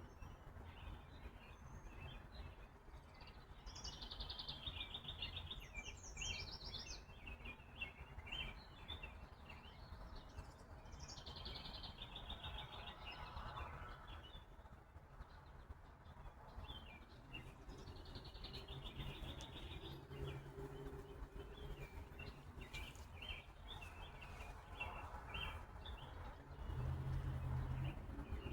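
Small songbirds chirping, with short calls and rapid trills coming every second or two, over a faint low rumble.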